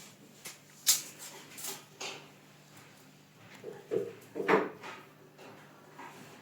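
Several sharp clicks and knocks, with a longer, louder knock and scrape about four and a half seconds in.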